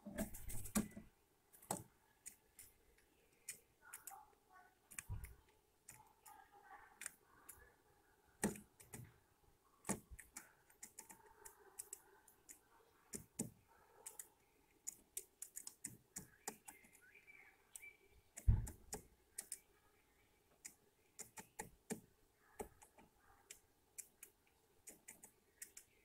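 Eurasian jay pecking at seeds in a wooden feeder tray: irregular sharp taps and clicks of bill on seed and wood, with a heavier knock about 18 seconds in.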